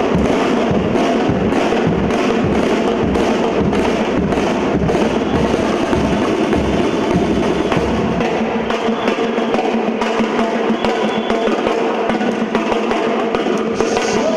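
Batucada drum ensemble playing live: bass drums pound a fast, even beat under rattling snare drums. About eight seconds in the bass drums drop out and the snares carry on alone.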